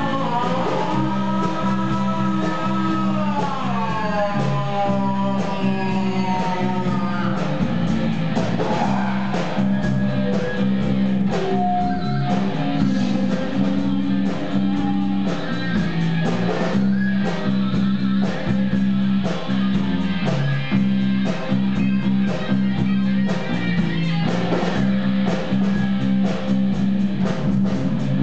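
Rock music with electric guitar to the fore over a steady bass line; higher notes slide down in pitch in the first few seconds.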